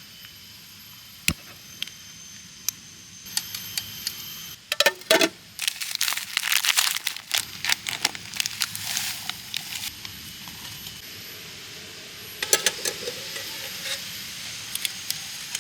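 Camp cooking gear and packaging being handled: scattered light clicks and clinks with rustling, busiest in a run of rapid clicks in the middle and another short cluster later.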